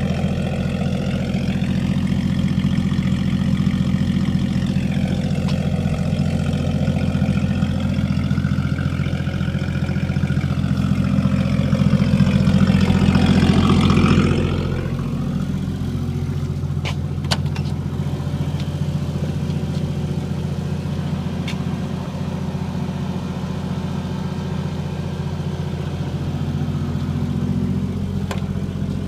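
1953 Chevy 210's 235 inline-six engine running, its speed wavering and rising in the first half, then dropping back about halfway through to a steadier, quieter run with a few light clicks.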